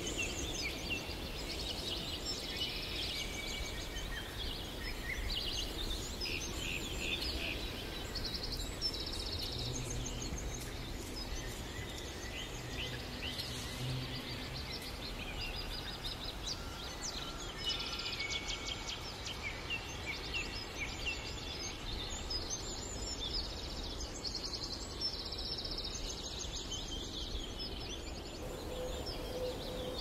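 Several small forest songbirds chirping and trilling over a steady low background rumble.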